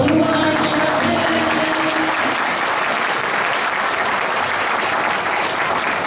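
Audience applauding at the end of a song, the last sung note fading out in the first two seconds.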